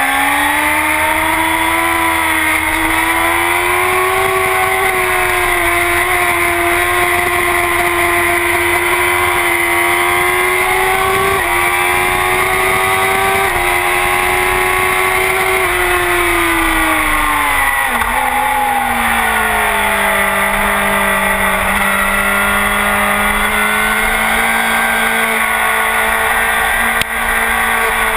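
Honda CBR1000RR's inline-four engine, breathing through a full Akrapovic exhaust, running hard at high revs. The pitch climbs at the start and holds high with small steps. About two-thirds through it falls away over a few seconds and settles at lower revs.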